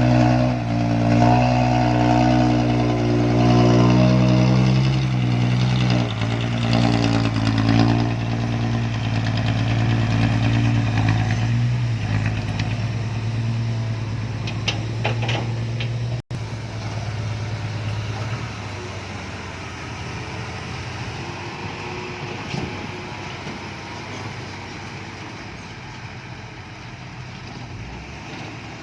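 Heavy diesel construction-machine engine running at a steady pitch, then dying away over the last ten seconds or so to a faint rumble.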